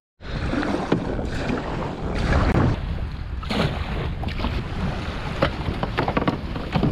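Wind buffeting the microphone over rushing water around a small paddled skiff's hull, with scattered splashes from paddle strokes and small surf.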